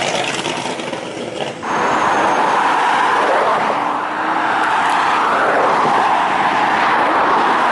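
Straight-piped McLaren 570S twin-turbo V8 exhaust. A rough, crackling stretch lasts about a second and a half, then the engine comes in hard and runs loud and steady at high revs.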